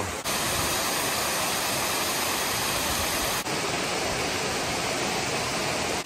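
Steady rushing roar of a large waterfall pouring over a rock ledge, as an even hiss with no breaks; its tone shifts slightly about a second in and again about three and a half seconds in.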